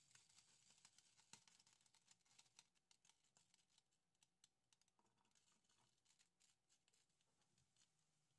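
Very faint crackling of ghee and cooking oil heating in a nonstick pan: scattered small clicks and pops that thin out after about four seconds.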